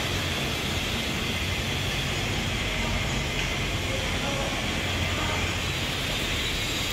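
Steady low mechanical hum under a constant hiss, with no change from start to end.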